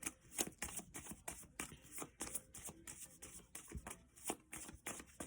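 A deck of cards being shuffled and handled by hand: a run of soft, irregular card flicks and clicks, about two a second.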